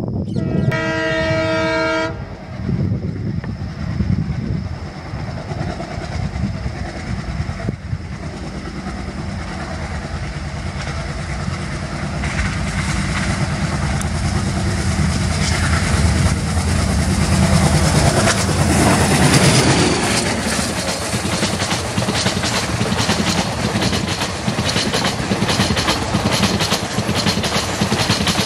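Indian Railways diesel locomotive sounding its horn briefly near the start. It then approaches at high speed, the engine and rail rumble rising to a peak as it passes about two-thirds of the way through. The passenger coaches follow, clattering rhythmically over the rail joints.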